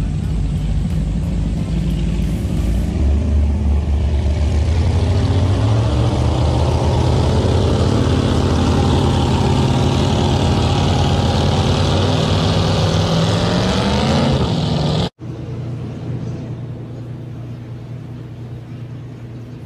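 A high-performance speedboat's engine rumbling, then accelerating hard: its pitch climbs steadily for about ten seconds before the sound cuts off abruptly about fifteen seconds in. A quieter steady low rumble follows.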